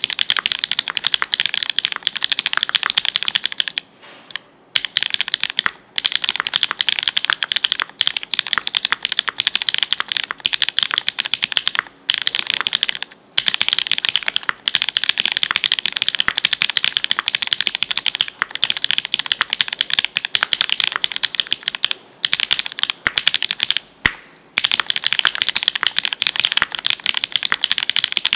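Fast, continuous typing on a GEONLAB F1-8K mechanical keyboard with an FR4 plate and GMK PULSE keycaps, its lubed linear 'Frankenstein' switches (Novelkeys Cream POM stems in Cherry black nylon housings, 58 g springs) bottoming out with each keystroke. The keystrokes run densely with a few short pauses, the longest about four seconds in.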